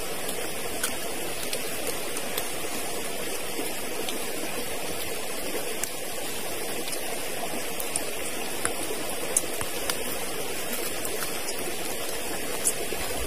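Steady rushing of a forest stream, with a few faint clicks near the middle and the end.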